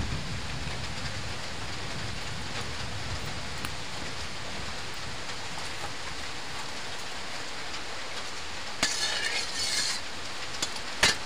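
Steady hiss of rain. About nine seconds in, a metal spatula scrapes across a metal karai (wok) with oil heating in it, and it knocks against the pan with a sharp clink near the end.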